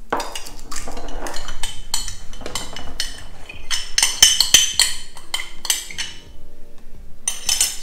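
A spoon clinking, knocking and scraping against a bowl as pastes and spices are added for a masala mix, a quick irregular string of clinks with a few ringing strikes about four to five seconds in.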